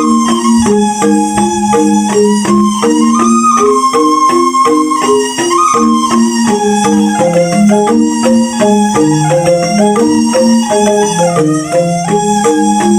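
Balinese rindik (bamboo xylophone) music: quick, repeating mallet-struck notes in an interlocking pattern, with a held higher melody line above them.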